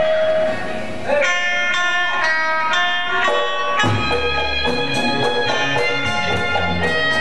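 Live gambang kromong ensemble music: a held melodic line gives way about a second in to quick struck notes with sharp attacks. A heavy bass and drum pulse comes in about four seconds in.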